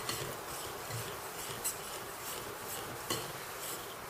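A kitchen utensil stirring and scraping through thick cake batter in a mixing bowl, with soft repeated scrapes and two light clicks against the bowl, over a steady background hiss.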